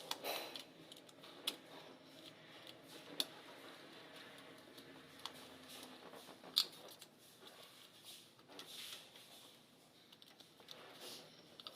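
Scattered light clicks and taps with a few sharper knocks and brief rustles: small hand work on parts at close range.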